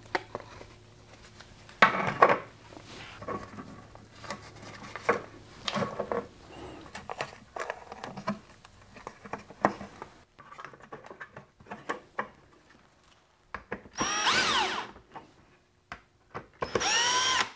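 Plastic parts knocking and rustling as the 3D-printed PLA mold segments are handled, then near the end two short runs, about a second each, of a cordless drill/driver driving screws into the mold ring, its motor whine rising and falling in pitch each time.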